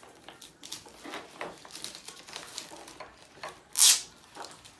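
Plastic toy packaging being handled and worked open: irregular rustling, clicks and scrapes, with one loud short rasp about four seconds in.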